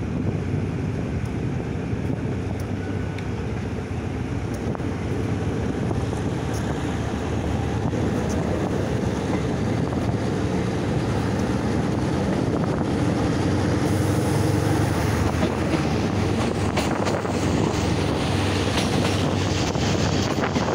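Passenger train running on the rails as it pulls out of a station and picks up speed, heard from an open window: a steady rumble of wheels on track with wind buffeting the microphone, growing louder in the second half, with a few short clicks.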